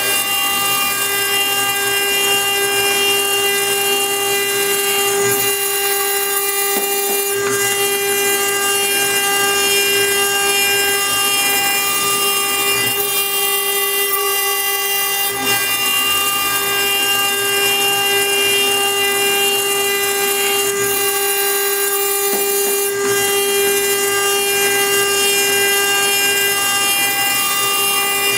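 CNC-1218 router spindle running at a steady high whine while its bit grinds into a stone slab, cut wet under a water coolant jet. The whine holds one pitch with several overtones above a constant grinding hiss.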